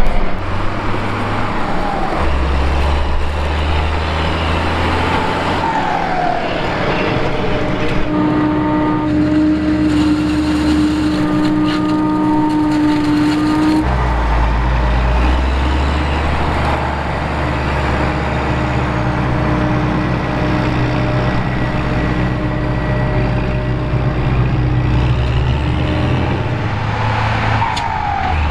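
Tractor diesel engines and a self-propelled forage harvester running while chopping silage maize. A steady whine sits on top for several seconds in the middle. The sound shifts abruptly a few times, as between separate takes.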